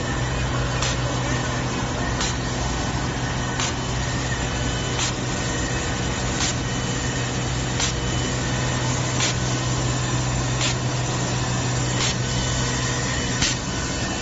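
Wet-glue and sticker labelling machine running on a bottling line: a steady motor hum and conveyor noise, with a short sharp sound repeating evenly about every one and a half seconds.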